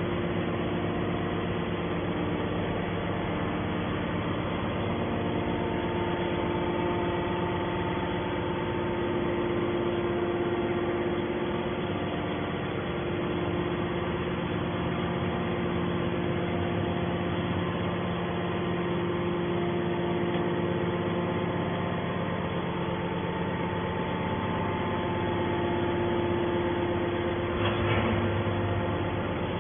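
Horizontal scrap metal baler's hydraulic drive running with a steady hum made of several tones. There is a brief louder clatter near the end.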